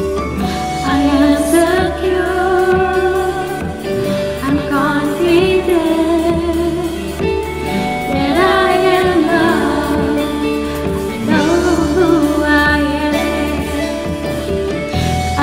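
Contemporary worship song performed by a band: a female lead singer with backing voices sings over acoustic guitar, bass guitar and drums.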